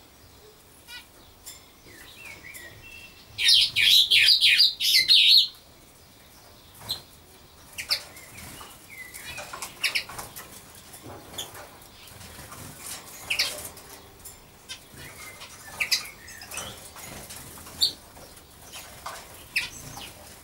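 Small birds chirping, with a loud burst of quick high chirps from about three and a half to five and a half seconds in, then scattered single chirps and calls.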